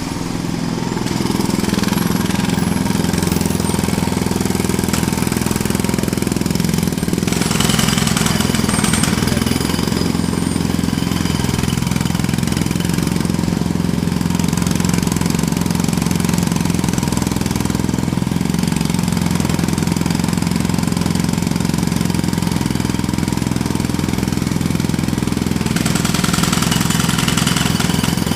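Jackhammer hammering continuously, starting suddenly, a fast steady rattle of blows over a low engine-like drone.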